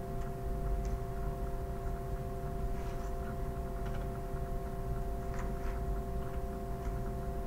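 Steady hum made of several held tones over a low rumble, with a few faint clicks.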